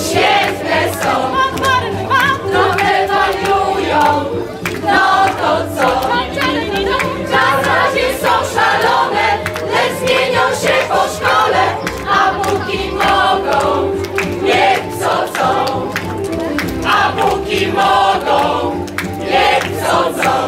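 A group of voices singing together over a musical accompaniment with a steady bass line.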